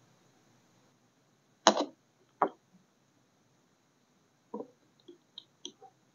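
Wax-sealing tools being handled on a work surface: two sharp knocks around two seconds in, then a run of small clicks and taps near the end.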